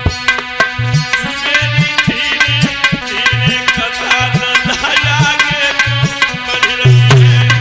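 Instrumental devotional music: a tabla-style hand drum plays a quick rhythm whose bass strokes slide upward in pitch, over sustained chords and a wavering high melody.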